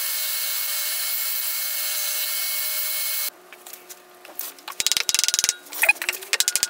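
Scheppach DECO-FLEX scroll saw running steadily as its blade cuts a notch into a plywood impeller hub; it stops abruptly about three seconds in. Near the end comes a rapid run of scraping clicks as the tight-fitting wooden hub is worked onto the electric motor's shaft.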